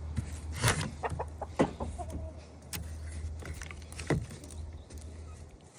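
Chickens clucking in short calls, mixed with a few sharp knocks, over a steady low rumble.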